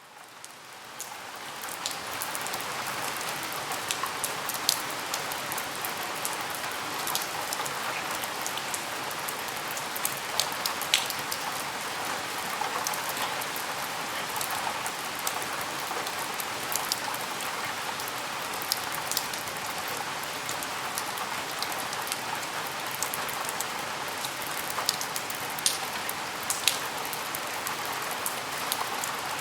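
Steady rain falling outside a window, a dense even hiss with the sharp ticks of single drops hitting close by scattered through it. It fades in over the first two seconds.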